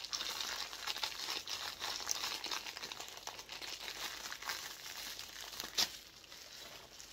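Plastic wrapping crinkling and tearing as hands unwrap a small vinyl figure from its black plastic bag and then a clear plastic bag, with one sharp click about six seconds in.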